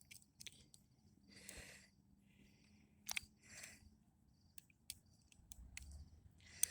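Near silence with faint, scattered clicks of lock picks working inside a door-knob lock cylinder.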